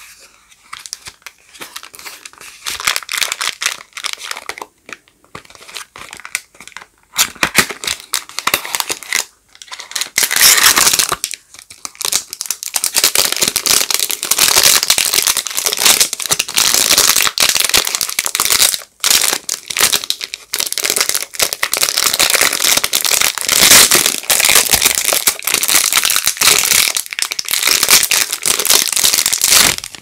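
Hands opening a cardboard soap box and unwrapping the bar inside. For the first several seconds there is light scratching and tapping on the box, then dense, loud crinkling and tearing of the wrapper, broken by a few short pauses.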